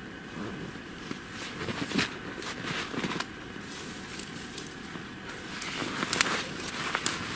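Rustling and crackling of a makeshift forest-floor bedding as someone settles onto it and shifts about. There are sharp crackles about two and three seconds in, and a denser run of them near the end.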